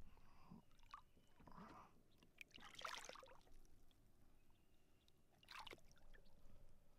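Faint water sloshing and splashing as a small largemouth bass is lowered into the lake by hand and released, with two brief splashes, about three seconds in and again later as it swims off.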